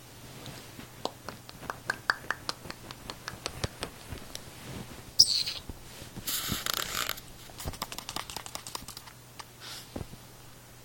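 Cats moving about: a scattered run of light clicks, taps and scratches, such as claws on furniture, with two short rustling bursts about five and six seconds in.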